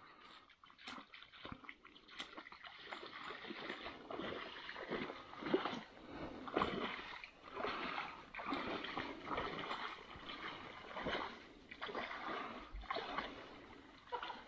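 Water splashing in irregular surges as an ATV drives through a water-filled hole on the trail.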